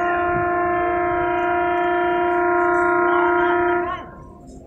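Train horn sounding one long, steady blast that cuts off about four seconds in.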